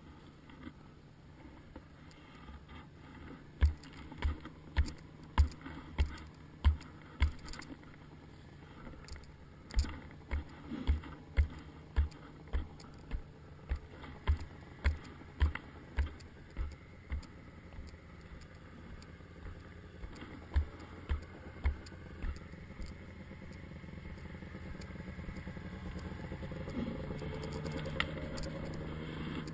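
ATV engine running at low speed with a steady hum, rising in level over the last few seconds. Over it come runs of dull low thumps, about two a second.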